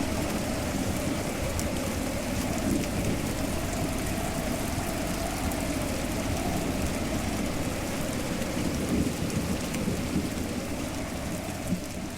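Steady rain, with fine ticks of individual drops and a low rumble underneath.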